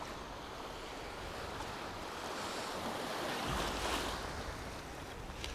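Choppy sea water washing and splashing in the shallows around a wading angler, with wind on the microphone. The splashing swells about three seconds in and then eases.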